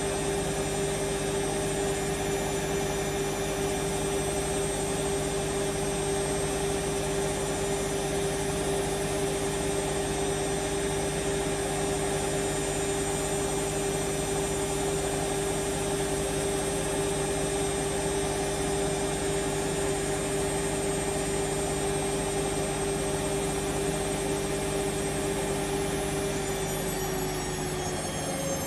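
Hoover Vision Dynamic washing machine spinning at high speed: a steady motor whine with the drum's rush. Near the end the pitch starts to fall as the spin slows down.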